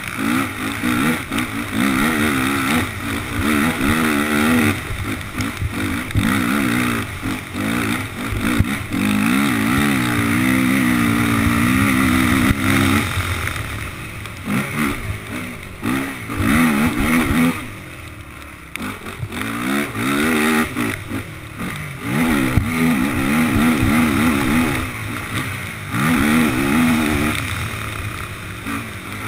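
Honda race quad's engine close to the onboard camera, revving hard with its pitch rising and falling over and over as the rider works the throttle and gears. About eighteen seconds in the throttle comes off and it goes quieter briefly, then it pulls again.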